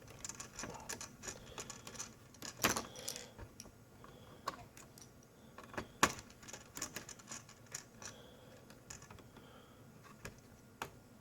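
Light clicks, taps and small metallic rattles of laptop screws and a screwdriver being handled during reassembly, with two sharper knocks, a little under three seconds in and about six seconds in.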